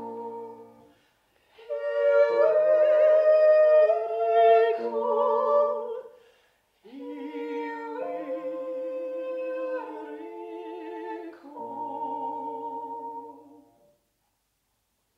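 Two women singing a classical art-song duet, their voices moving in separate lines with vibrato. The phrases are broken by short breaths, and the last note is held and ends about 14 seconds in.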